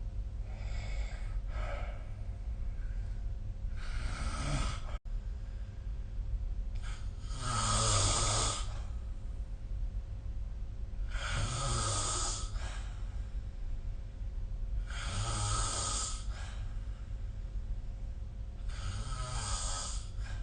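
A sleeping person snoring in a slow, regular rhythm: a rasping snore about every four seconds, with two fainter, softer breaths at the start. A steady low hum runs underneath.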